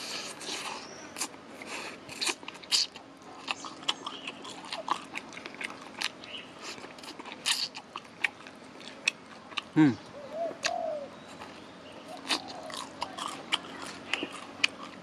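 Crispy sauced fried chicken being bitten and chewed close to the microphone, with crunchy clicks and crackles throughout. About ten seconds in there is one short sound that drops steeply in pitch.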